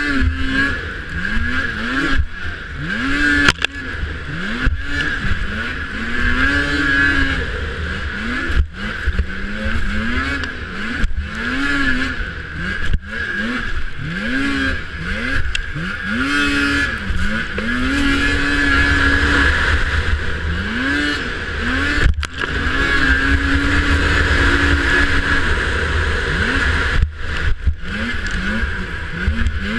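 Racing snowmobile's two-stroke engine being revved hard and backed off over and over, its pitch rising and falling every second or two and held high for a few seconds twice in the second half. Wind rushes over the helmet-mounted microphone throughout.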